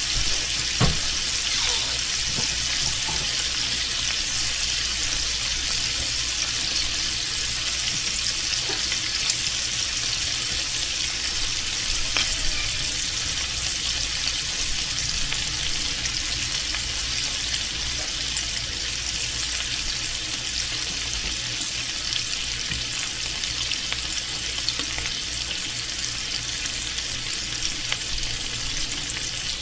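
Bacon frying in a pan: a steady sizzling hiss of spitting fat, scattered with small sharp pops, two of them louder about nine and eighteen seconds in.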